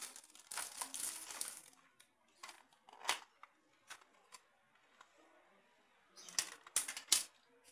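Plastic zip-lock bag crinkling as it is handled, then scattered sharp clicks and taps of plastic phone parts being picked up and handled. A quick run of louder clicks and knocks near the end is the loudest part.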